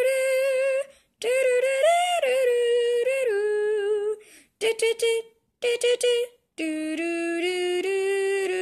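A high voice singing a wordless tune with no accompaniment: long held notes broken by short pauses, a few brief clipped notes about halfway, and a lower phrase stepping upward near the end.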